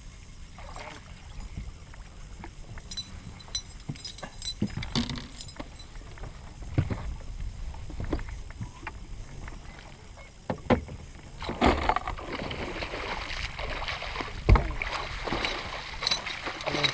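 Scattered knocks and clicks on the boat, then, from about eleven seconds in, a hooked musky thrashing and splashing in the water at the boat's side as it is netted, with one heavy thump partway through.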